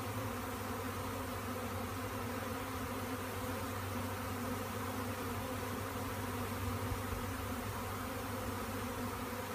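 A swarm of honey bees buzzing: a steady, unbroken low hum.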